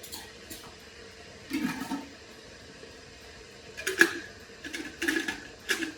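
Ground coffee being poured into a stainless steel mesh pour-over filter in several short swishing pours, with a sharp tap about four seconds in.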